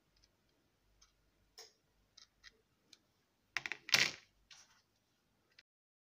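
Small clicks and taps of 3D-printed PLA paddle-wheel parts being handled, with a louder clatter of plastic about three and a half seconds in.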